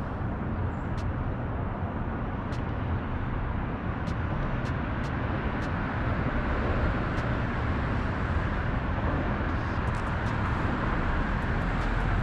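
Steady rumble of road traffic crossing the highway overpasses, with faint light ticks now and then.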